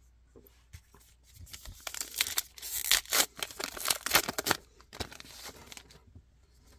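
A baseball card pack's wrapper being torn open and crinkled: a run of rustling, tearing crackles that is loudest around three to four seconds in, then a few lighter rustles.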